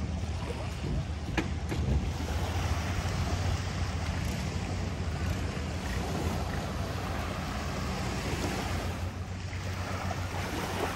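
Beach ambience: waves washing ashore over a steady low rumble, with wind noise on the microphone.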